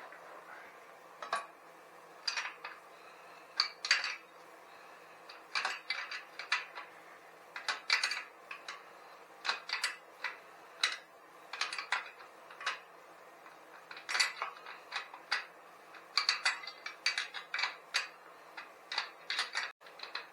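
Metal hand tools clinking and tapping against metal bicycle and engine parts during dismantling, in irregular clusters of sharp clicks.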